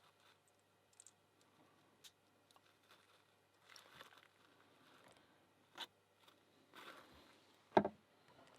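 Faint scattered clicks and short rustles of small parts of an American 1100 padlock being handled with thick rubber drysuit gloves while the pins are loaded back in, with one sharper click near the end.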